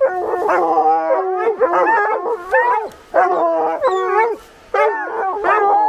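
Hounds baying at a tree, several voices overlapping in long, bending howls with two short pauses: the tree bawl of hounds that have a bobcat treed.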